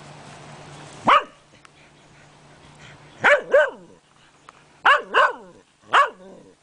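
A dog barking in play: six short barks, the middle four in quick pairs.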